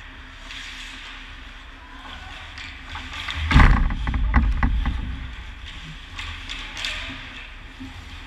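Ice hockey skates scraping and carving the ice close to the goal, loudest about three and a half seconds in, with a quick series of sharp clacks of sticks and puck just after; a steady arena hum underneath.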